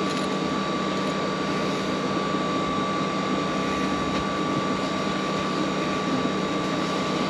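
Steady machine drone with a constant high whine above it.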